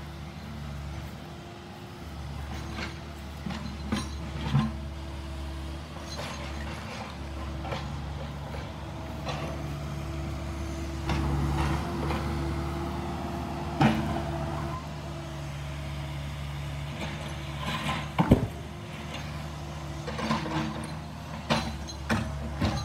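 Caterpillar mini excavator digging soil: its diesel engine runs steadily under load, with the clank and scrape of the steel bucket against ground and debris. Several sharp knocks come through, the loudest about 18 seconds in and a run of them near the end.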